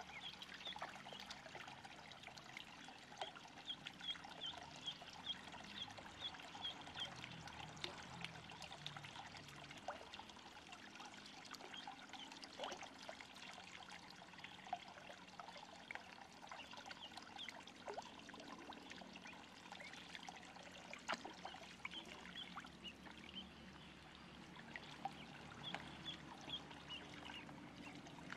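Faint, steady trickle of water pouring into a small pond, with light splashing. Ducklings peep in short runs near the start and again near the end.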